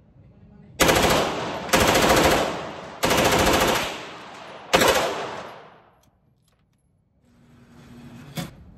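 H&K MP5K submachine gun firing 9mm on full auto: four bursts in about five seconds, each echoing in the enclosed indoor range. A single sharp knock comes near the end.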